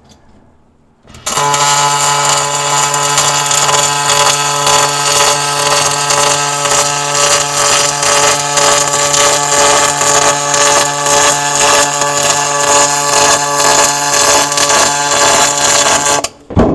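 MIG welding arc on an aluminum hull seam: about a second in the arc strikes and runs for some fifteen seconds as a loud, steady buzzing hiss, then cuts off, with a short knock just after.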